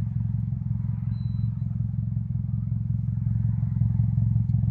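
Nissan Juke's exhaust at idle, a steady low drone through the muffler, running quietly now that the exhaust joint behind the acceleration knock has been repaired.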